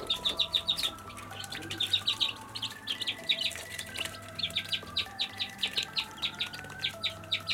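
Chick peeping from inside a pipped egg, short high peeps several times a second in uneven runs: the chick has broken through the shell and is about to hatch. Background music with held notes plays underneath.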